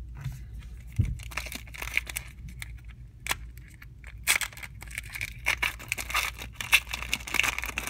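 A trading-card pack wrapper (2017 Unparalleled football) being crinkled and torn open by hand, a dense run of crackling and clicks, with a sharp knock about a second in.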